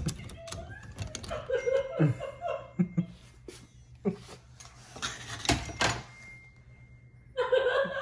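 Metal doorknob hardware clicking and knocking as the unscrewed knob set comes out of the door, a handful of separate clunks spread over several seconds. A man's voice is heard briefly near the end.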